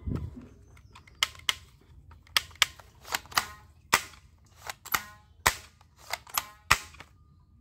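Plastic toy gun's mechanism clicking, about a dozen sharp snaps at irregular spacing, several with a short ring after them.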